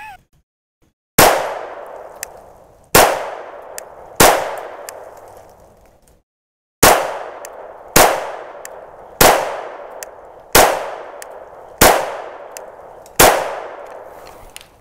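Nine shots from a 9mm Canik Rival pistol firing light-loaded 147-grain rounds at about 900 feet per second. They come at a steady pace about a second or so apart, with one longer pause after the third shot. Each report is followed by an echo that dies away over a second or two.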